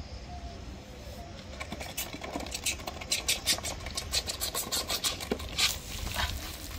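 Coca-Cola fizzing with rapid crackles as baking soda is poured into the bottle, the reaction foaming up and spraying out of the neck near the end.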